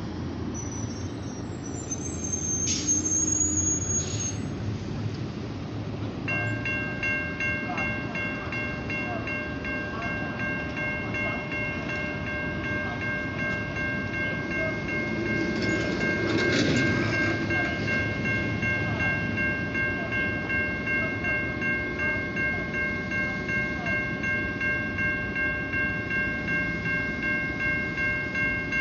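Railroad grade-crossing warning bell starting about six seconds in and ringing steadily in a regular pulse, about twice a second, over the low rumble of an approaching freight train. A brief high squeal comes near the start.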